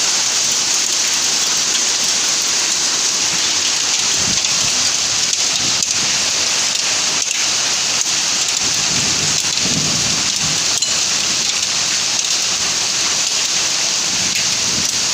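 Hail and heavy rain pelting down in a steady hiss, with frequent sharp clicks of individual hailstones striking. A low rumble comes about nine seconds in.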